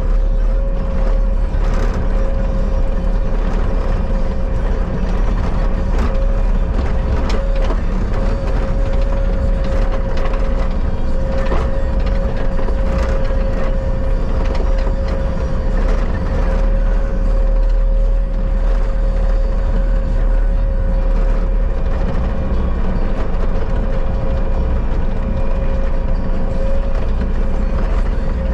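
Bobcat skid steer running steadily: a low engine rumble with a steady higher hum over it and occasional short clanks.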